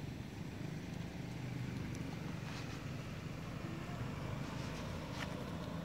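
Steady low hum of a running engine, with a few faint clicks.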